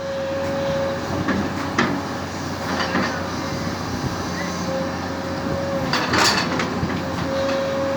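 Excavator running as it is worked, a steady high whine over the machine's noise, with a few sharp knocks about two, three and six seconds in.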